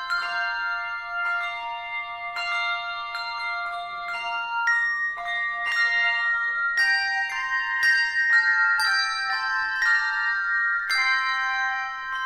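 Handbell choir ringing a piece in chords: each stroke sets several bells ringing together, their tones lingering and overlapping as a new chord is rung every half second to a second.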